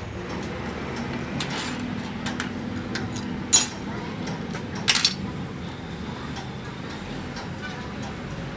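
Metal clinking against metal in a workshop: small clicks, then two loud sharp clinks about a second and a half apart, over a steady low hum.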